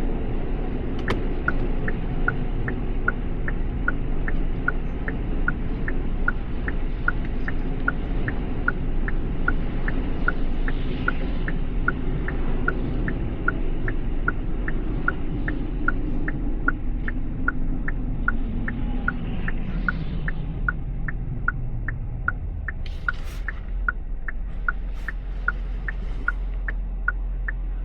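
Car turn-signal indicator ticking steadily, a little over twice a second, starting about a second in, over the low rumble of the car driving, heard from inside the cabin.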